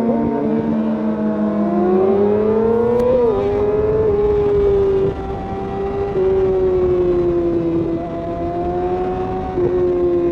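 Inline-four sport-bike engine under acceleration, its pitch climbing, then dropping sharply at an upshift about three seconds in, before holding a steady cruise with small changes in throttle. Wind rushes over the microphone at road speed.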